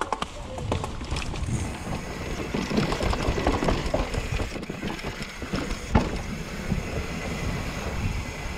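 Mountain bike ridden fast downhill on a dirt trail: tyres rolling and crunching over dirt and roots, with chain and frame rattling and a steady run of small knocks. A sharp knock comes about six seconds in, as the bike hits an obstacle.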